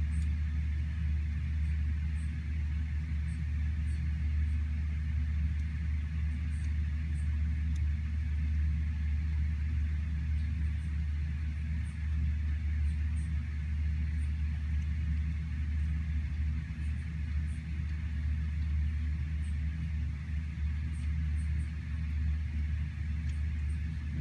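Steady heavy rain falling on forest trees, with a constant deep rumble underneath.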